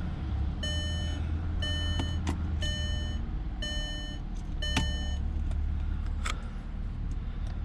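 Dashboard warning chime of a 2007 Mercedes ML63 AMG, beeping four times about a second apart as the key is turned on without starting the engine, over a steady low hum.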